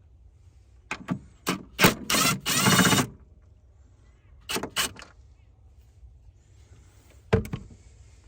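Hand tools and metal parts clicking and clunking while the bolts holding the battery crossbar are undone. A string of sharp clicks comes about a second in, then a dense rattling burst of about a second, then a few more single clicks.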